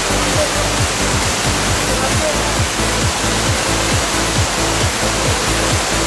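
Waterfall and the rocky stream below it rushing steadily, with background music carrying a fast, steady beat.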